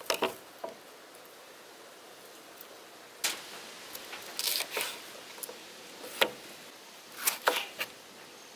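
Chef's knife slicing a bell pepper on a plastic cutting board: short, sharp knocks of the blade on the board, irregularly spaced, a few coming in quick pairs.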